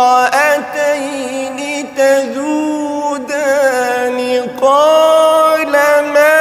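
A man's voice reciting the Quran in the slow, melodic tajweed style, drawing out long melismatic notes with quick wavering ornaments. About two-thirds of the way through he moves onto a louder, steadier held note.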